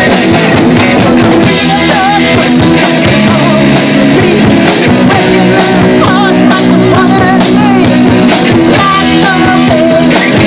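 Live rock band playing: electric guitars over a steady drum-kit beat, with women singing.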